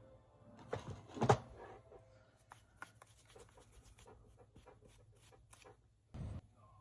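Small handling sounds of chrome powder being worked onto nails: soft rubbing and a run of light clicks, with a louder knock about a second in.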